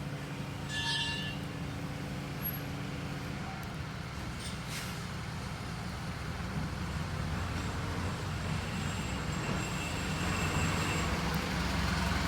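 Truck traffic: a steady low engine rumble, with a brief high-pitched squeal about a second in and the rumble growing louder toward the end.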